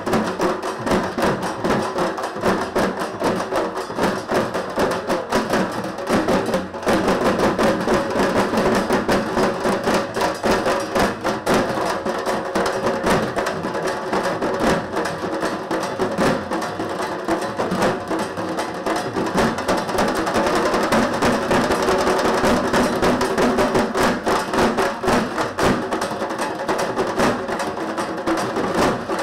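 An ensemble of dhaks, large double-headed Bengali barrel drums, beaten with thin sticks in a fast, dense, continuous rhythm, with a momentary break about seven seconds in.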